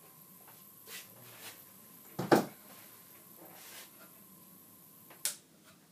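A .22 air rifle fires once, about two seconds in, its pellet striking the hard disk drive at short range with a short double crack. Near the end comes a sharp click, and a faint steady high tone stops with it.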